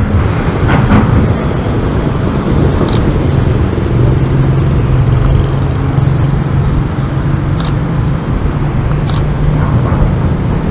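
Road traffic below: motor vehicles running steadily with a constant low hum and tyre noise. Three short, sharp clicks are heard over it.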